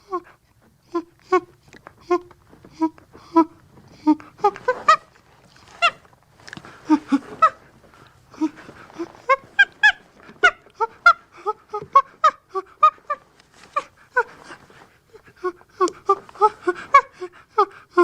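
Chimpanzee calling in a long series of short, pitched hoots and pants, about two a second at first, then quickening into dense, overlapping bouts.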